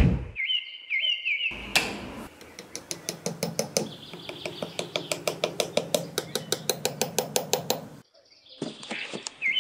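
A short run of high rising chirps about a second in. Then comes a sharp knock and a long series of quick, even wooden clicks and taps, about five a second, as small painted wooden sticks are set into sand. The clicks stop suddenly near the end, then a few more follow.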